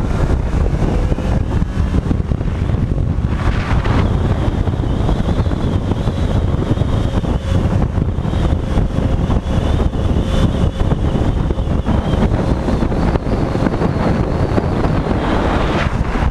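Heavy wind rush on a helmet-mounted camera at highway speed. The motorcycle's engine runs underneath at a steady pitch, swelling briefly twice.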